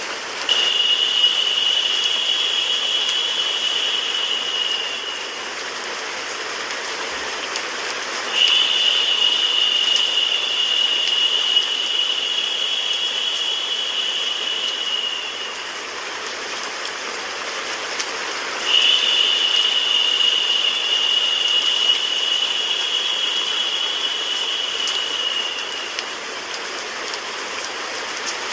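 Steady hiss of white noise and rain. A steady high tone comes in three times, each lasting about five to seven seconds and starting abruptly.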